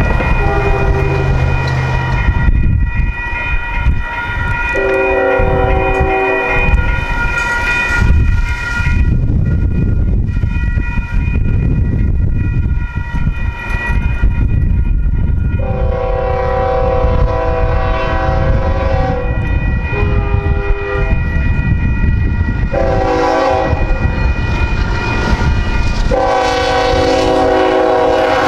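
Union Pacific freight locomotive sounding its horn for the grade crossing in repeated blasts, mostly long with a short one in between, over the steady ringing of the crossing's warning bells and the rumble of the approaching train.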